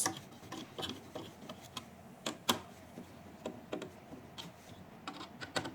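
Irregular clicks and light taps of a holding part being fitted and its screws worked on the back of a machine, with a sharper knock at the start and another about two and a half seconds in.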